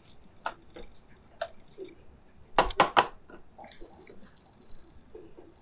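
Ground almonds being scraped with a spatula from a food processor bowl into a stainless steel pan, with soft scrapes, clicks and crumbly crunching, then hands working the damp almond meal. A little before the middle, three sharp knocks in quick succession stand out as the loudest sounds.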